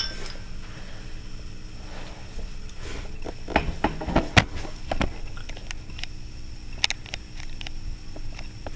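Ice cubes and glass knocking and clinking on an ice-topped glass bottle and jar, with handling noise. A sharp glassy clink comes at the start, then a cluster of soft knocks and clicks about three to five seconds in and one more click near seven seconds, over a low rumble.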